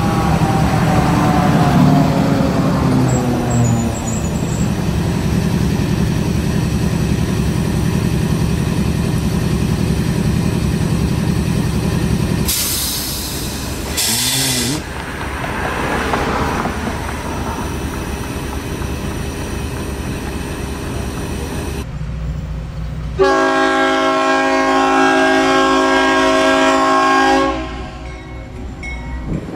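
Diesel locomotive idling with a steady low rumble, broken about halfway by two short bursts of hissing air. Then a locomotive horn sounds one long blast of about four seconds as the train approaches.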